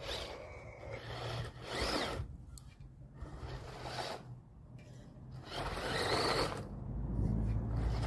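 Remote-control car's motor whirring in bursts as its tyres spin and scrabble in loose dirt, about four bursts with the last and longest a little past the middle, over a low motor hum.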